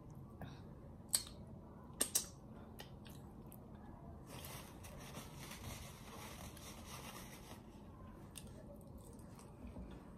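Quiet chewing of saucy barbecued spare ribs eaten by hand, with a few sharp clicks: one about a second in and two close together about two seconds in.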